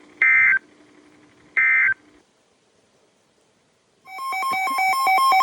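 Two short, harsh digital data bursts a little over a second apart, the last of the three EAS end-of-message (NNNN) bursts that close a NOAA Weather Radio alert, over a low steady hum. After a short silence, a fast run of bright electronic synthesizer tones starts about four seconds in.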